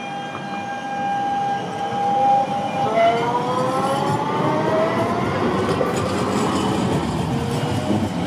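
Electric tram pulling away from a stop and passing close by. A steady whine gives way, about three seconds in, to a set of rising whines as the traction motors gather speed, over the growing rumble of its wheels on the rails.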